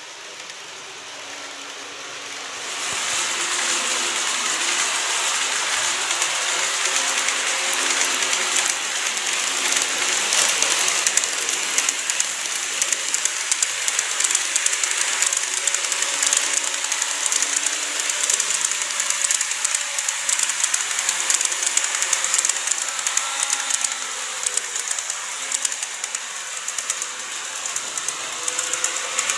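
KATO E259 series model train running along the track, its wheels and motor making a fast, fine clicking rattle that comes in about three seconds in and keeps on steadily.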